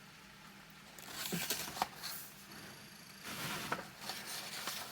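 Paper instruction sheets being handled and turned, a faint rustle with a few crisp clicks in two spells, the first starting about a second in. The paper is slightly moist.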